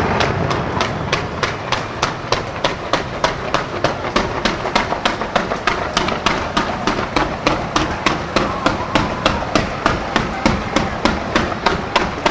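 Fireworks display: after a dense spell of overlapping reports, a rapid, regular run of sharp bangs at about three a second.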